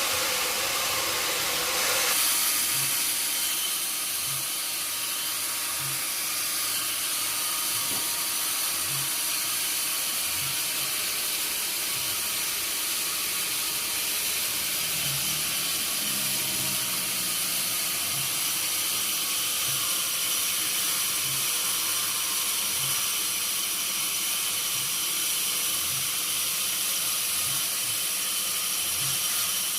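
Sawmill machinery running steadily, a high hissing whine with several steady tones in it. The sound shifts about two seconds in.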